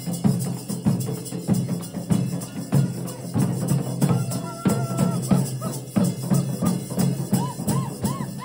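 Dollu Kunitha drumming: a troupe beating large dollu barrel drums in a fast, steady, driving beat.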